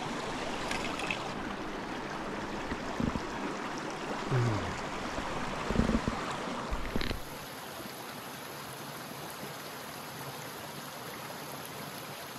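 Small mountain brook running: a steady rush of water, with a few low thumps of handling in the first half and the water a little quieter after a change about seven seconds in.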